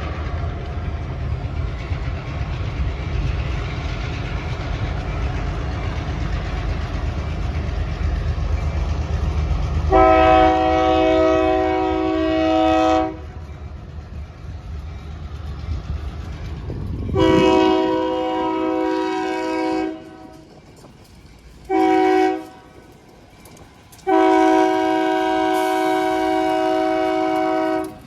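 A diesel locomotive rumbles as it approaches, then its air horn sounds the grade-crossing signal: two long blasts, one short and a final long one. The horn is a chord of several steady tones.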